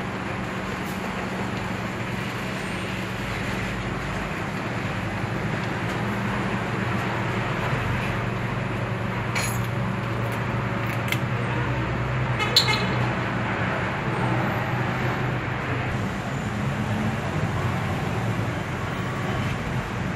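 Steady traffic and engine noise from nearby road vehicles, with a low hum throughout. A few short clicks come through the middle, and a brief higher-pitched sound, like a toot, comes about twelve seconds in.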